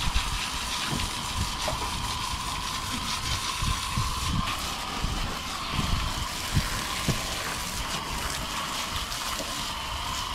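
Garden hose spray nozzle spraying a steady jet of water over the boat's interior and carpet, with a faint steady whine in the hiss.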